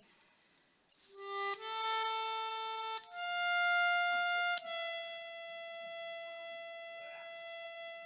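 A wind instrument playing a slow phrase of four long held notes that step upward in pitch. It starts about a second in, and the last note is held for about four seconds.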